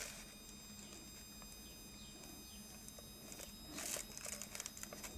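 A plastic bag crinkling briefly about four seconds in, over a faint steady high-pitched whine from the DP-4 roentgenmeter's running blocking oscillator.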